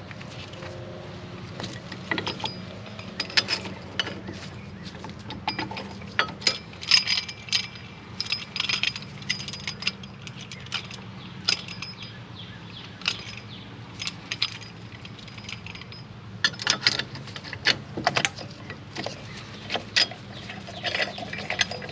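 Irregular metallic clicks and clinks of a brake caliper piston compressor tool being handled and fitted against a disc brake caliper, over a steady low hum.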